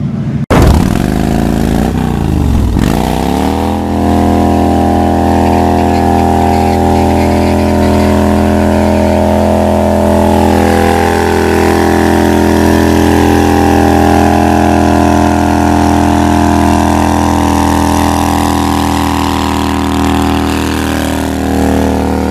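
Kawasaki VN2000 cruiser's big V-twin engine revved hard during a burnout. The revs swing up and down over the first few seconds, then are held high and steady while the rear tyre spins and smokes.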